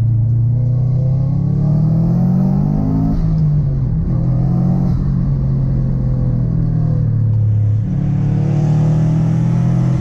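Subaru Impreza STI's turbocharged flat-four engine pulling under acceleration, heard from inside the cabin: revs climb for about three seconds, drop at an upshift, hold steady, then step up again near the end.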